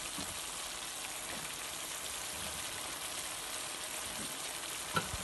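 Chicken pieces sizzling steadily in a pot, with one short knock near the end.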